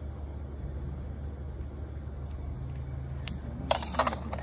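Metal nail instruments clinking against a stainless-steel tool tray: a quick cluster of sharp clicks near the end, over a steady low hum.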